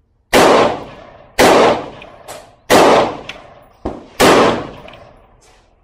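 Four AR-15 rifle shots fired at an unhurried pace, a second or so apart, each a sharp crack with an echo that trails off for about a second. Fainter sharp cracks come between the later shots.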